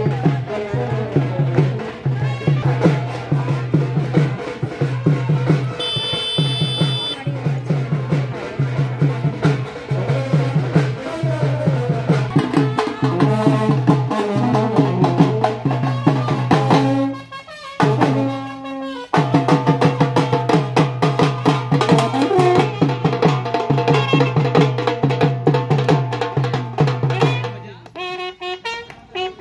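A procession brass band playing, with drums keeping a steady, even beat under brass. The music dips briefly a little past halfway and again near the end.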